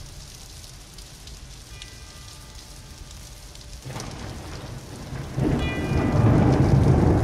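Steady rain. A low thunder rumble builds about four seconds in and turns loud at about five and a half seconds.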